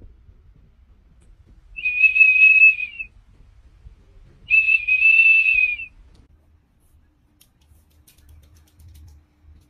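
A small plastic whistle blown by a golden retriever holding it in its mouth: two steady high-pitched blasts, each a little over a second long, with a short pause between them.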